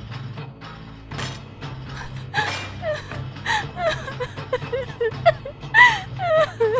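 Background music, joined about two seconds in by a young woman's voice sobbing and whimpering in short, wavering breaths.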